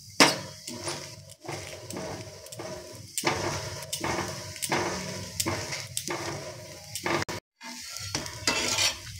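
Metal spatula scraping and tapping across a dosa on a hot iron tawa in short repeated strokes, with oil sizzling underneath. A sharp clink of metal on the griddle comes right at the start.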